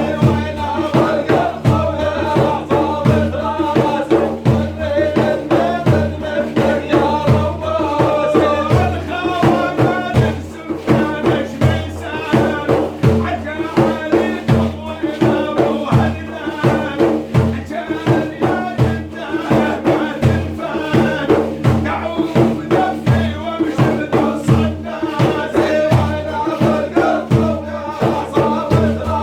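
Sufi dhikr chanting: a male voice sings religious verses over a steady beat of hand-struck frame drums.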